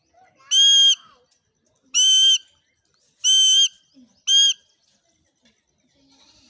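Indian ringneck parrot giving four shrill, high-pitched calls, each about half a second long and a little over a second apart, the last one shorter.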